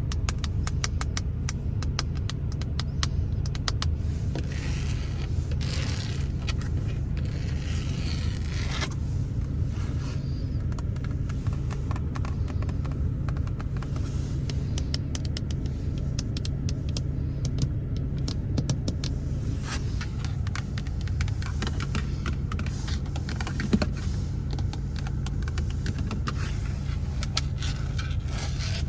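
ASMR tapping and scratching on the interior surfaces of a Ford Focus: quick runs of light finger taps, densest at the start, with stretches of scraping between them. A steady low rumble lies under it throughout.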